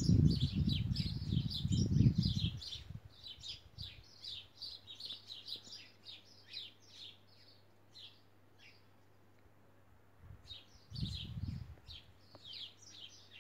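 Small birds chirping in a quick, busy string of short high chirps that thins out for a couple of seconds past the middle. A low rumble, the loudest sound, fills the first two seconds or so and comes back briefly about eleven seconds in.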